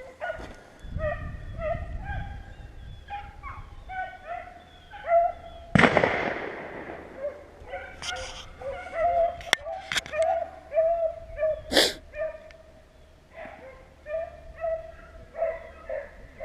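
Pack of beagles baying while running a rabbit's track: many short, repeated hound calls, overlapping throughout. A brief loud rush of noise comes about six seconds in, and a sharp click near twelve seconds.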